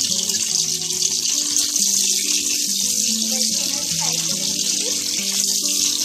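Potato pieces sizzling steadily in hot oil in an aluminium kadai while they deep-fry. Background music of held notes plays along.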